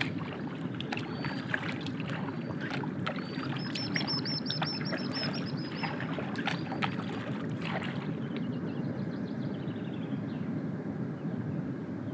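Paddle strokes dipping into calm river water, with splashes and drips over a steady low water noise. A songbird sings a quick trill of repeated high notes from a few seconds in, then a second trill that falls in pitch.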